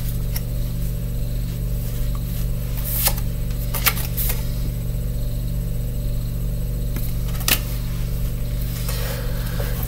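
Steady low hum with a few brief soft ticks and rustles, about four in all, from tarot cards being handled.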